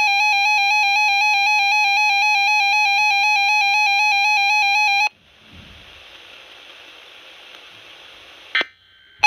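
RadioShack 12-521 weather alert radio sounding its alert tone, a loud, rapidly warbling electronic tone that cuts off suddenly about five seconds in. A faint hiss follows, ended by a short click.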